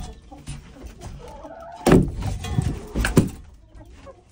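Several loud, sudden thumps and knocks inside a wooden chicken coop, the strongest about two seconds in and two more around three seconds in.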